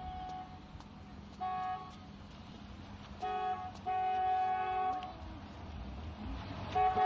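Car horn honking in separate steady blasts: a short one about a second and a half in, two more between three and five seconds in (the second longer), and another starting near the end.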